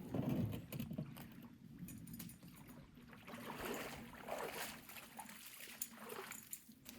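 Water swishing and lapping around a canoe, with a few paddle strokes.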